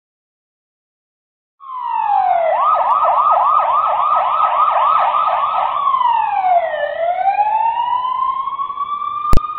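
Police siren starting after a moment of silence: a rising wail, then a fast yelp at about four sweeps a second, then a slow wail falling and rising again. A single sharp click near the end.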